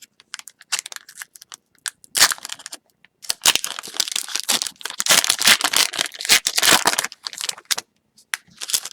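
A retail hockey card pack's wrapper being torn open and crinkled by hand: scattered small crackles, a sharp rip about two seconds in, then several seconds of dense crinkling, with a brief flurry of crackles near the end.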